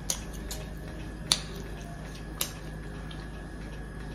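Three short, sharp, wet clicks about a second apart, the middle one loudest: mouth and lip smacks of someone chewing food eaten by hand. A steady low hum runs underneath.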